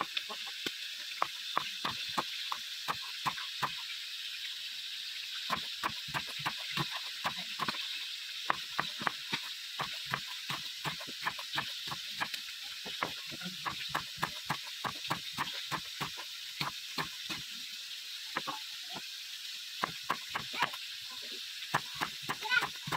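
Chef's knife slicing red chillies on a wooden cutting board: a run of quick, irregular taps of the blade on the board, two or three a second with short pauses, over a steady hiss.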